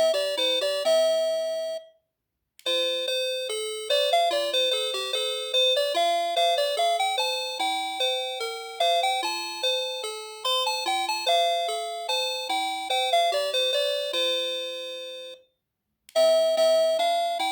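NX-5776-675 doorbell playing its electronic chime melodies, each note a bell-like tone that dies away quickly. One tune ends about two seconds in, a longer tune follows after a short gap, and a third begins near the end after another brief pause.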